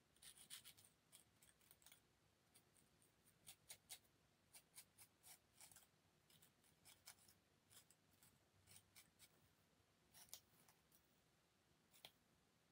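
Faint, short snips of scissors cutting the lace of a lace-front wig, a few at a time with pauses between.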